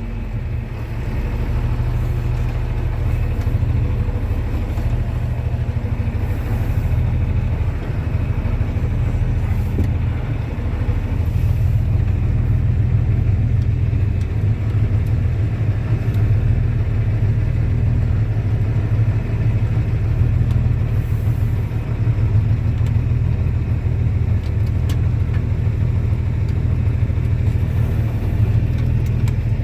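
John Deere 4630 tractor's six-cylinder diesel engine running steadily, heard from inside the cab.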